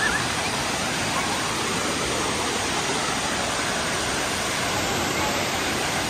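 Tirathgarh waterfall: a steady, even rush of falling water, with a few faint voices in the first second.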